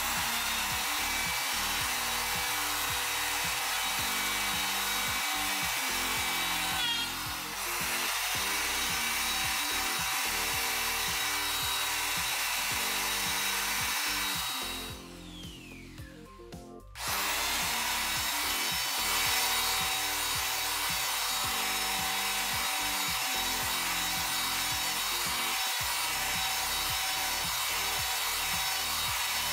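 Electric hand planer running and shaving across a wooden slab with cured epoxy inlay. Halfway through it is switched off, its pitch falling as the motor winds down, and it starts again about two seconds later.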